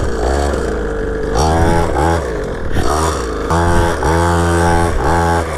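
Pit bike engine revving hard, its pitch rising and falling in several throttle surges, the last one held longest.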